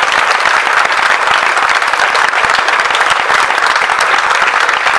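A crowd applauding: dense, steady clapping that neither builds nor dies away.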